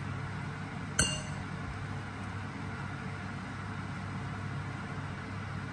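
A single sharp clink about a second in, a frying pan knocking against a glass bowl as fried onion and prawns are tipped into it, with a brief ringing. A steady low hum runs underneath.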